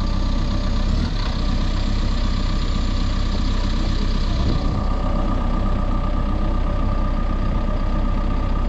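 Caterpillar 420F2 backhoe loader's diesel engine idling steadily, with a steady whine above the engine note.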